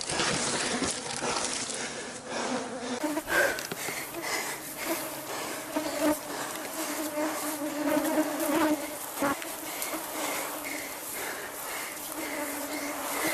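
Angry bees buzzing close around the climber, a wavering buzz that comes and goes, loudest around the middle. Sharp scuffs and knocks from hands and body against a coconut palm trunk break through now and then.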